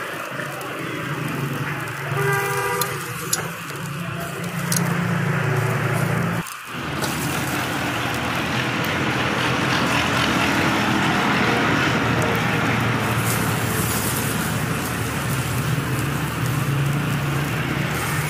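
Outdoor background noise with a low hum and a short vehicle horn toot about two and a half seconds in. After a break about six and a half seconds in, a steady hiss takes over.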